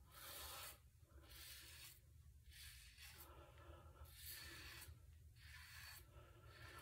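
Double-edge safety razor scraping through lathered stubble on the cheek: a series of faint, short rasping strokes, about one a second.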